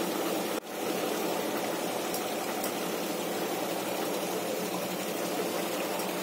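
A steady, even machine-like whir that drops out sharply for a moment about half a second in, then carries on unchanged. A few faint light clicks sit on top of it.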